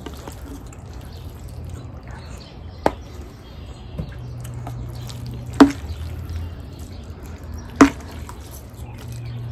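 Eating sounds: a few sharp clicks of forks against plates among soft, wet noodle-eating mouth sounds, over a low steady hum.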